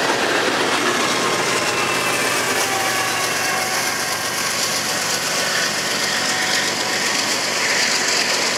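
Empty coal hopper cars rolling past on steel wheels with a faint wheel squeal. About halfway through, the rear distributed-power pair of CN GE diesel locomotives (an ES44DC and a C44-9W) passes with its engines running.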